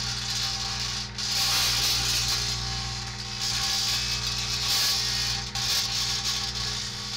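Screws arcing in a running microwave oven: a crackling, sizzling hiss that surges and dips every couple of seconds over the oven's steady electrical hum.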